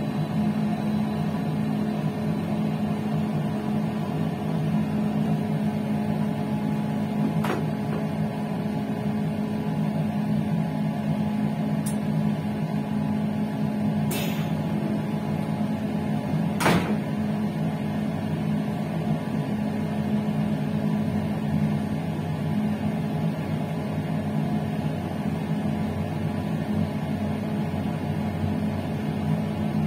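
Steady electrical hum of an electric passenger train, with a few short sharp clicks, the loudest about 17 seconds in.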